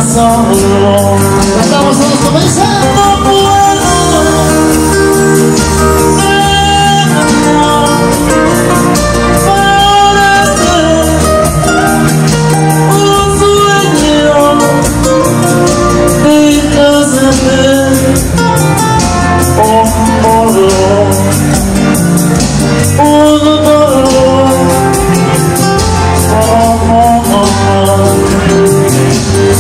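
Live band music: a man singing a slow, melodic love song into a microphone, with guitar accompaniment.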